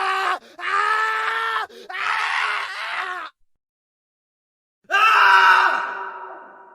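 Male screams: three screams in quick succession, then after a short silence one louder scream that trails off.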